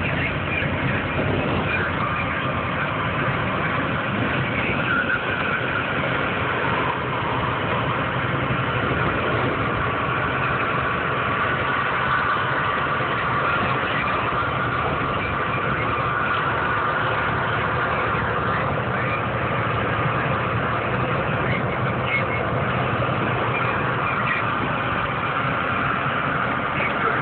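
Steady engine and road noise heard inside a vehicle's cab while it drives along a highway.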